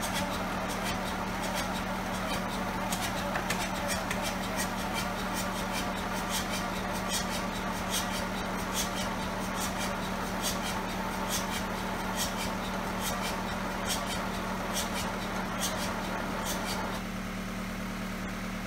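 Vintage crawler tractor's diesel engine idling steadily after years of standing, with a sharp tick about once a second. The level drops a little about three-quarters of the way in.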